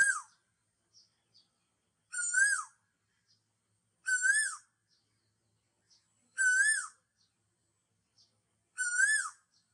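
A bird calling over and over: five short calls about two seconds apart, each a single note that rises and then drops in pitch.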